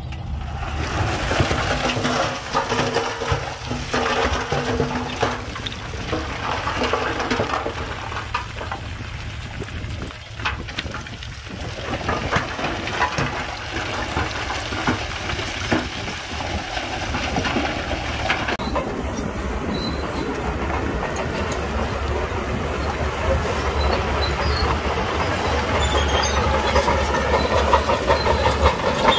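Shantui DH17C2 crawler bulldozer working under load: its diesel engine drones steadily while the steel tracks clank and the blade grinds through loose stone.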